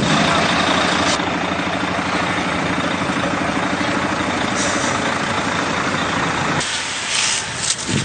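A heavy engine running steadily. About six and a half seconds in, it cuts to a hissing noise with a few sharp clicks.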